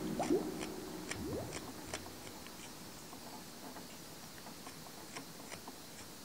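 Carving knife slicing small chips from old hardwood: quiet, crisp cuts about two or three a second, slowly getting fainter. A guitar piece dies away in the first second or so.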